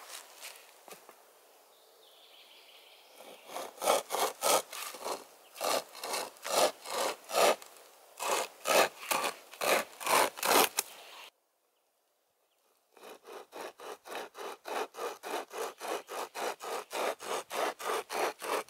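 Small camping saw cutting wood in steady back-and-forth strokes, about two a second, that stop abruptly about eleven seconds in. After a short silence the sawing resumes with quicker, lighter strokes, about three a second.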